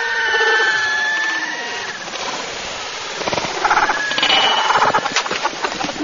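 Jumbled shouting and hollering from several men at once.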